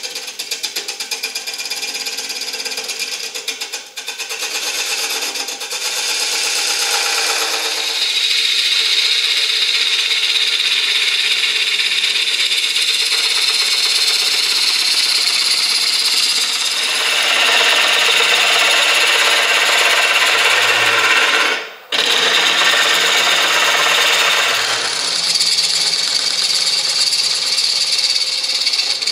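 Bowl gouge cutting into a spinning ash bowl blank on a wood lathe while hollowing out the bowl: a steady, loud hiss and rasp of shavings being peeled off. The sound breaks off for a moment about two-thirds of the way through, then carries on.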